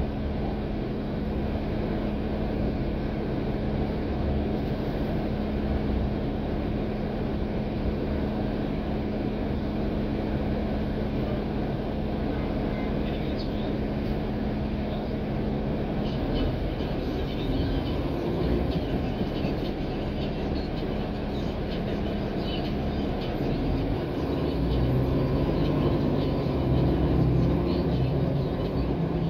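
Cabin noise inside a NABI 416 transit bus: a steady engine and running noise with a low hum. The hum shifts about halfway through, and the low rumble grows louder over the last few seconds.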